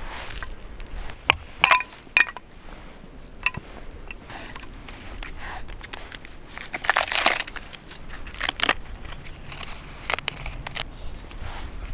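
Dry kindling sticks knocking and clacking as they are stacked into a crisscross fire lay, with a burst of crunching, crinkling handling noise about seven seconds in.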